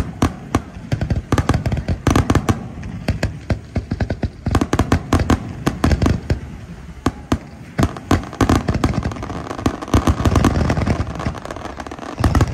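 Aerial fireworks shells bursting in rapid succession, a dense barrage of sharp booms and cracks several per second, coming in clusters with brief lulls between them.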